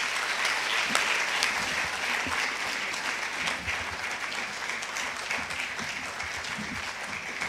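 Audience applauding: many hands clapping in a dense patter that slowly dies down.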